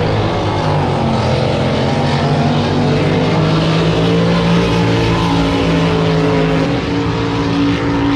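Drag boat racing engine running hard, its pitch climbing in steps.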